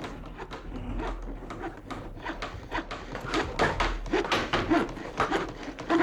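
A rapid, irregular clatter of short wooden knocks mixed with rubbing and scraping, getting busier in the second half.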